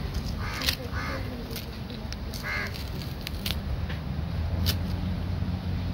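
Green banana peel being pulled off by hand, with a few sharp snaps as the skin splits. A bird calls three short times in the background, over a steady low rumble.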